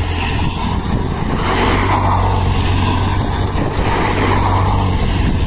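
Small motorcycle engine held at steady high revs while the rear tyre spins in loose dirt and the bike slides round in a drift, with a hiss that swells and fades every second or two.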